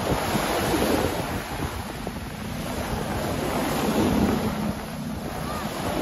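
Small ocean waves breaking and washing up the sand at the water's edge, swelling about a second in and again around four seconds, with wind buffeting the microphone.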